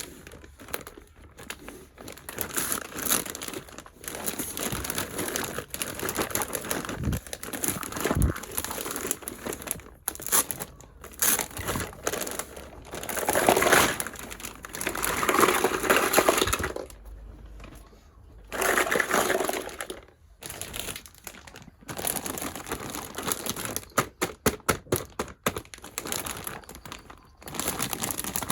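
Packaging of a toy kitchen set crinkling and rustling as it is handled and unboxed, in uneven bursts, with a quick run of small clicks near the end.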